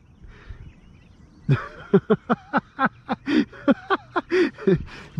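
Quiet for about a second and a half, then a man's voice in quick short bursts without clear words, about four or five a second, until the end.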